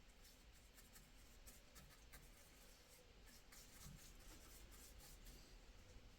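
Near silence, with faint, irregular scratchy ticks over a low hum.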